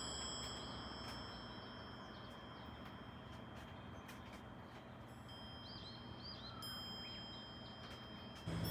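A hibashi furin, a wind chime of hanging iron rods, rings with long, clear, high metallic tones that fade slowly and are struck again twice about five and seven seconds in. Faint bird chirps sound in the background, and a low hum comes in near the end.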